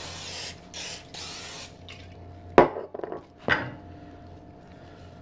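Aerosol can of Pam cooking spray hissing in two short bursts, then two sharp knocks about a second apart, the first the loudest moment.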